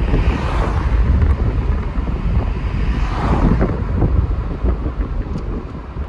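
Wind buffeting the microphone: a loud, heavy low rumble with two gusty swells, about half a second and three seconds in.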